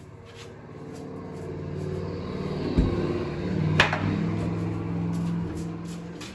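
Wooden closet shelves being worked loose from a tight fit against the wall: a dull thump about three seconds in and a sharp wooden knock a second later. Under them runs a low hum that swells and then fades.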